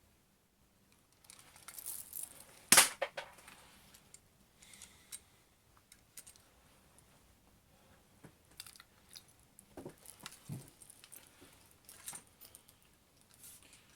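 Metal clicks and clacks from handling a spring-powered, full-metal broom-handle airsoft pistol: the slide is worked and the hammer moves. One sharp, loud snap comes about three seconds in, followed by scattered lighter clicks.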